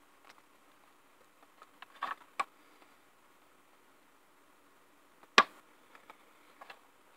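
Small plastic clicks and knocks as an HDMI plug and mini-HDMI adapter are handled and pushed into a Raspberry Pi Zero W's port. There are a few clicks about two seconds in, then one sharp click, the loudest, a little past five seconds, then faint ticks.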